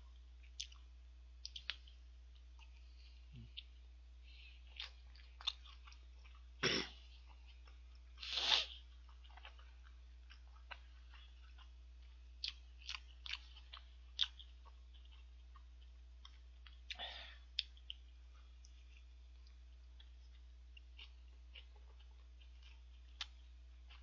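Close-miked chewing of a McDonald's 1955 burger: soft wet mouth sounds and scattered small clicks, with a couple of louder bites about a third of the way in, over a faint steady hum.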